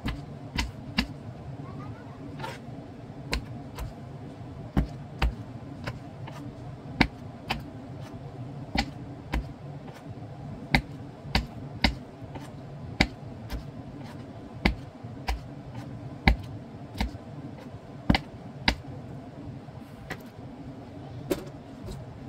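Kitchen knife cutting cherry tomatoes in half on a bamboo cutting board: irregular sharp taps of the blade striking the board, about one to two a second, over a steady low hum.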